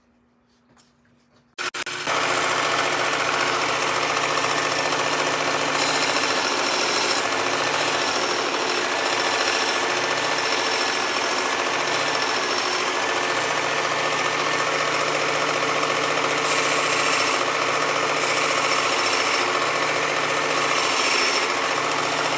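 Work Sharp Ken Onion Elite belt sharpener with the blade grinder attachment switches on a little under two seconds in and runs steadily. A steel knife blade is pressed to the moving belt in several short bouts of grinding, each adding a bright hiss, as the broken tip is reshaped.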